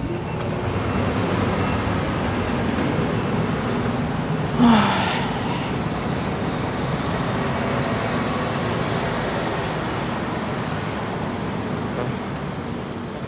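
Steady street traffic noise. About four and a half seconds in, a short, louder sound slides in pitch.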